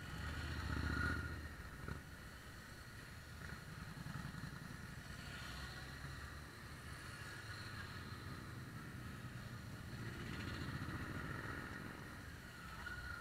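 Motorcycles ride past one after another at parade pace, each engine swelling and fading as it goes by. The loudest pass, a BMW touring motorcycle close by, comes about a second in.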